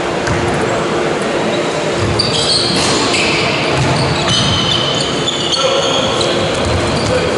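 Basketball bouncing on the sports-hall court during play. From about two seconds in come short high squeaks of sneakers on the floor, over voices echoing in the hall.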